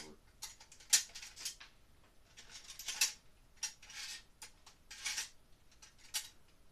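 Small metal hand tools clinking and rattling against a plastic tool case as they are handled and fitted back in, with a few sharper clicks.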